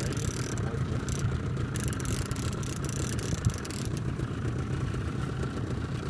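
Boat engine running steadily at low speed, with a single short knock about three and a half seconds in.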